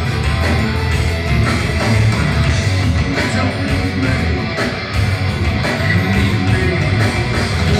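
Progressive metal band playing live at full volume: distorted electric guitar over pounding drums and bass, heard from out in the audience.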